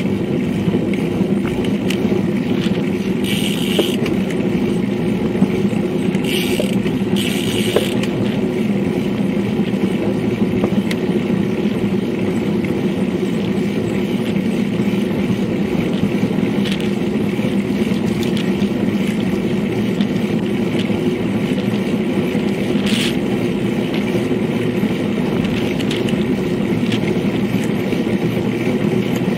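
Steady wind and rolling noise picked up by an action camera on a road bike moving at about 22 to 30 km/h: a constant low rumble from the tyres on asphalt and air over the microphone, with a few short bursts of higher hiss.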